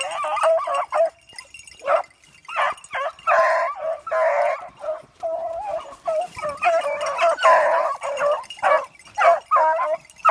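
Pack of beagles baying and yelping together in overlapping cries, the cry of hounds running a rabbit.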